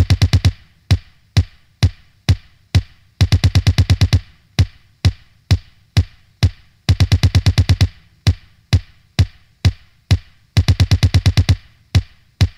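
Electronic background music with a drum-machine beat: sharp hits about twice a second, with runs of rapid hits about every three and a half seconds.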